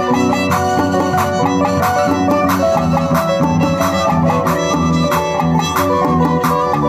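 Live band music: harp, violin and electric bass playing together with a steady, even beat.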